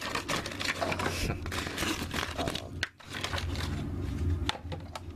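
Clear plastic packaging being handled and pulled off a computer mouse: irregular crinkling and crackling with many sharp clicks.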